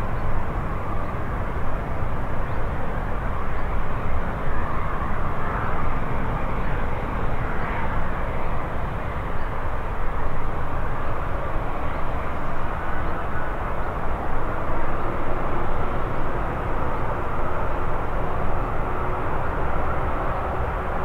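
Steady rumble and roar of an Airbus A350-941's twin Rolls-Royce Trent XWB turbofan engines during departure, with a faint steady tone rising slightly in the second half.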